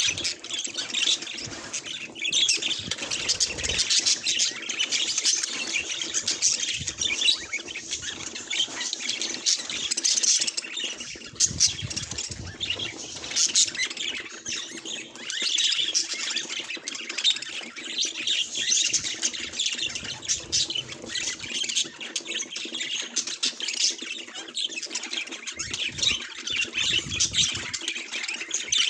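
Budgerigars chattering and squawking: a dense, unbroken stream of short overlapping chirps and warbles from several birds.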